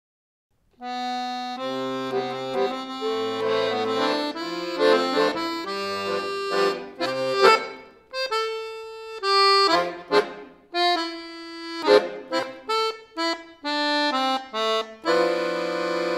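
Solo accordion playing a tune: a melody over held bass notes, with a couple of brief breaks near the middle.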